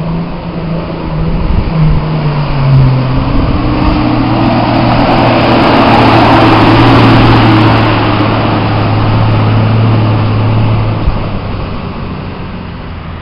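Nissan off-roader's engine pulling through deep water, its note rising about two seconds in and then held steady. Water rushes and splashes loudest as it passes close about halfway through, then fades as it drives away.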